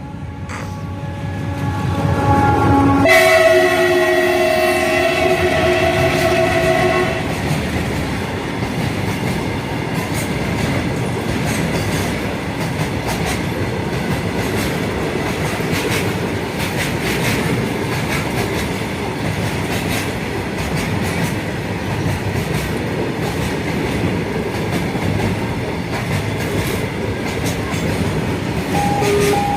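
A passing train sounds its multi-tone horn, whose pitch drops sharply about three seconds in as the locomotive goes by. The horn stops a few seconds later, and the train runs past with a steady rumble and a rapid clatter of wheels over the rail joints.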